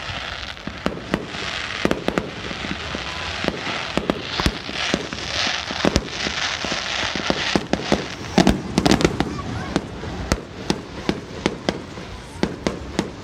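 Aerial fireworks going off: a long string of sharp bangs, thickest and loudest about eight to nine seconds in, over a hissing wash through the first half.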